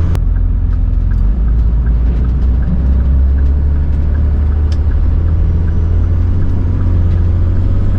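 Cummins diesel engine of a pickup truck running steadily as the truck drives at low speed, a constant low drone that shifts slightly about a second in. It is held in a low gear because the swapped transmission is slow to upshift at this speed.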